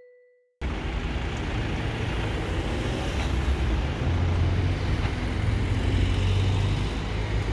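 The last ringing note of an intro jingle fades out, and after a half-second gap steady city street traffic noise begins: a low rumble under a hiss.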